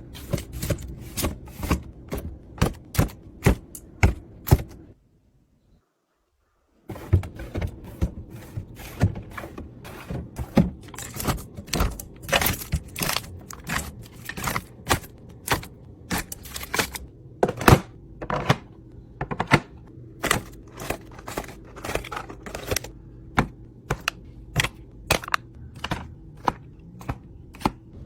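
Quick clicks, taps and clacks of containers, lids and jars being handled and set down while a fridge is restocked, about two or three a second. There is a break of about two seconds roughly five seconds in.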